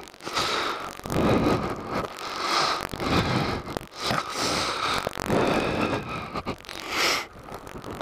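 A man breathing hard, panting in and out about once a second, while pushing a dirt bike on foot, with gravel crunching and scraping underfoot and under the tyres.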